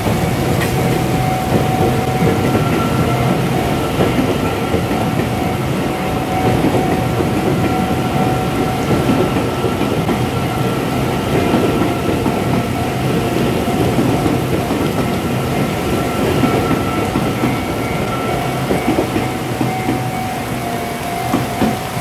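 Taiwan Railways electric multiple-unit trains, among them an EMU800, running past over a level crossing: a continuous rumble of wheels on rail with clickety-clack over the joints. Steady ringing tones from the crossing's warning signal sound throughout.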